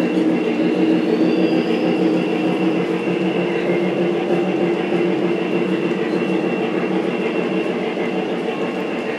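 Model freight train rolling past on the layout track: a steady rolling rumble of the cars' wheels on the rails, with a steady hum running under it.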